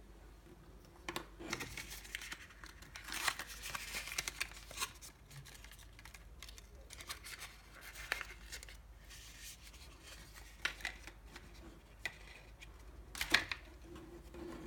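Small packaging handled by hand: adhesive backing liners peeled from a card of foam pads, with irregular scratchy tearing rustles and a few sharp clicks. The loudest cluster comes near the end.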